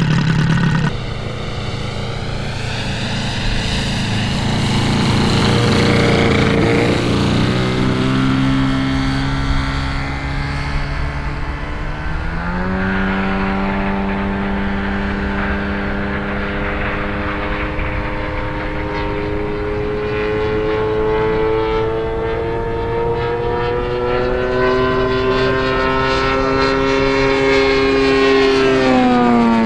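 Gas-powered 3W 70 R2 inline twin-cylinder two-stroke model-aircraft engine and propeller running in flight on a large RC warbird model. Its pitch shifts as the plane manoeuvres, jumps up about halfway, climbs slowly, then falls quickly near the end as the model passes by.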